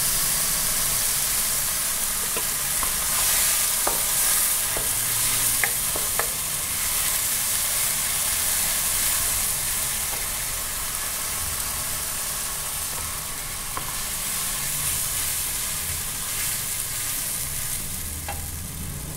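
Garlic, ginger and scallion sizzling in a wok with a splash of soup stock, stirred with a wooden spatula. The sizzle is steady, and the spatula knocks lightly against the pan a few times.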